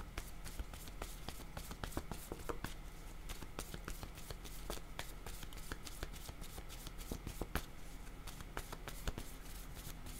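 A deck of cards being shuffled by hand: a steady run of soft, rapid card clicks and slides.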